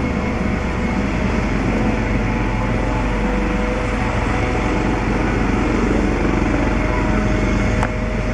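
Eurocopter AS365 N3 Dauphin helicopter running on the ground with its rotors turning: the steady rush and low rapid beat of the main rotor over its twin turbine engines, with a steady whine on top.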